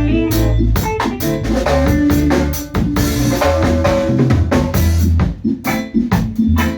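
A live reggae band playing an instrumental passage: steady drum-kit strokes with snare and kick over a deep bass line, with other pitched instruments above.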